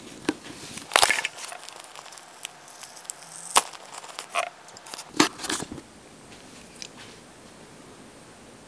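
Packaging of a small camera accessory being handled and opened by hand: a scattering of sharp clicks and short crinkly rustles over the first five or six seconds, then only faint handling.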